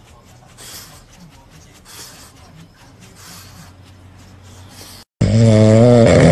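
Faint rasping about once a second from a French bulldog with a toy in its mouth, then, after a sudden cut about five seconds in, a loud, wavering snore from a dog asleep on its back on a couch.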